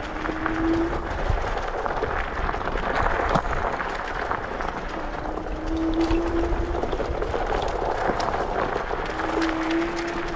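Electric scooter riding over rough ground: a steady hiss and crackle of tyres and wind with scattered small knocks. A short low steady tone comes three times, about every four seconds.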